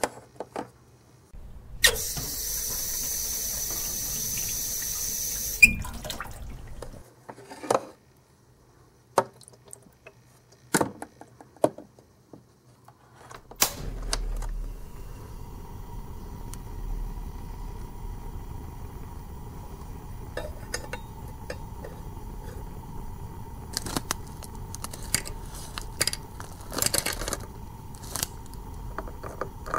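Water running from a toy kitchen tap into a small metal pot for about four seconds, followed by scattered clicks and knocks. From about halfway through, a steady low hum with a faint high tone runs on, with a cluster of clicks and clinks near the end as chocolate pieces are tipped into a clear bowl.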